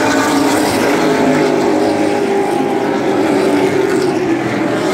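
A pack of ASA late model stock cars racing around a paved oval, several V8 engines running hard at speed at once, loud and unbroken.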